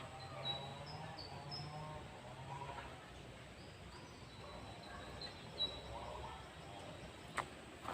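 Faint outdoor ambience of a bird chirping in short, high, slightly falling notes, with distant voices in the first few seconds and a sharp click near the end.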